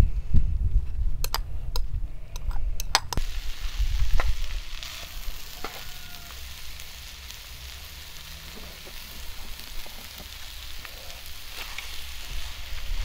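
Food frying in a pan with a steady sizzle and a few sharp clicks in the first three seconds. The hiss grows stronger about five seconds in.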